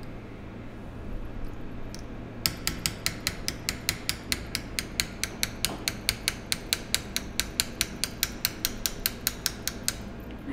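Small hammer lightly tapping a polished hand-made hammer-setting tool, about five quick, even taps a second with small changes in tone, starting a couple of seconds in and stopping near the end. This is hammer setting a stone: each tap pushes the setting metal over the stone.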